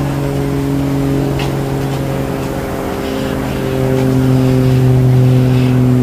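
A low, steady engine hum that runs throughout, its pitch shifting slightly about four seconds in.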